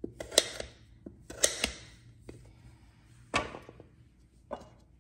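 Kitchen knife cutting raw, peeled butternut squash into cubes on a cutting board. About five cuts at uneven intervals, each a short stroke ending in a knock of the blade on the board.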